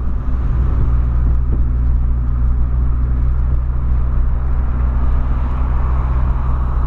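Volkswagen Polo sedan cruising at steady speed, heard from inside the cabin as a steady, loud low drone of engine and road noise.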